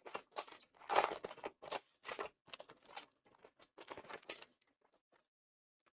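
Foil booster pack of Pokémon trading cards being torn open and crinkled: a string of short crackling tears that stop about four and a half seconds in.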